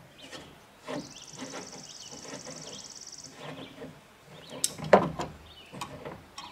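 Channel-lock pliers gripping and turning a rusted CB antenna ball mount to break it loose: metal clicks, scrapes and knocks, with one loud metal clank about five seconds in. A high rasping buzz runs for about two seconds near the start.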